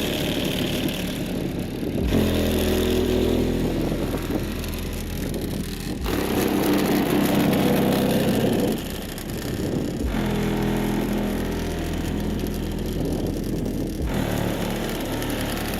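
Bass-heavy electronic music played loud through a car's four subwoofers, heard inside the car: deep, sustained synth bass notes that change every few seconds.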